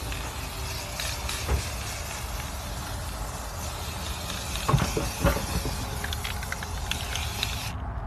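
Aerosol spray can of clear gloss coat hissing steadily as it sprays, cutting off suddenly near the end. A few light knocks come about halfway through.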